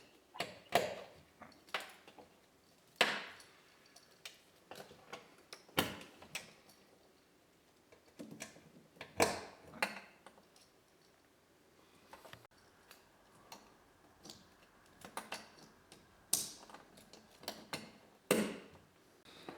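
Irregular clicks, taps and knocks from work on the front door of a 2003 Nissan Altima: plastic wiring-harness connectors being plugged in and pushed back into the inner door panel.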